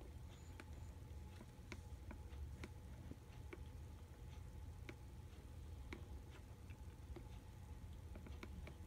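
Faint, sharp clicks at uneven spacing, roughly once a second, over a low steady hum and a faint steady tone.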